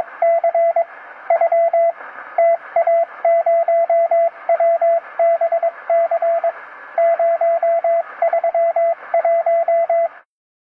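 Morse code: a steady-pitched beep keyed on and off in dots and dashes over radio hiss. It cuts off abruptly near the end.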